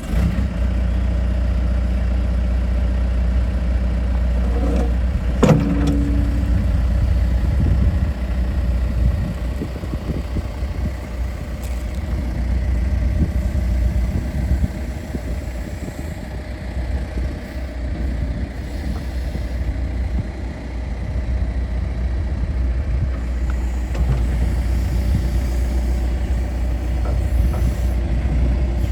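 John Deere 310G backhoe's four-cylinder diesel engine running steadily at idle, with one sharp knock about five seconds in.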